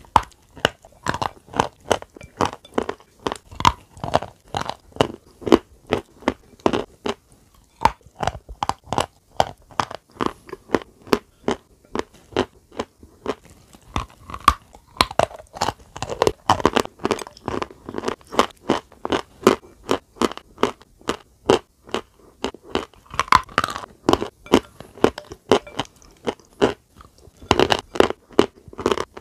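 Close-miked crunching and chewing of a brittle, crunchy food: sharp cracking bites followed by rapid crunchy chewing, several crackles a second throughout.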